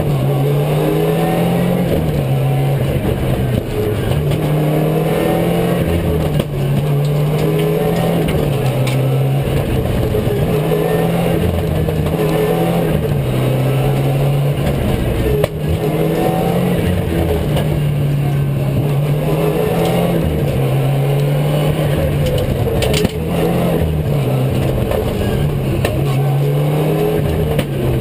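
Rally car engine heard from inside the cabin at stage pace. The revs climb and drop back sharply every couple of seconds as the car changes gear, over constant road and tyre noise. There are a couple of sharp knocks in the middle.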